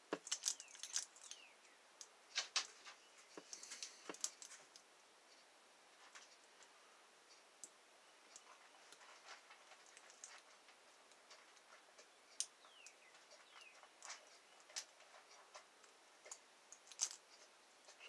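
Lock pick scraping and clicking against the pins inside the six-pin core of a Master Lock ProSeries padlock: faint, irregular metal ticks, busiest in the first few seconds, then scattered.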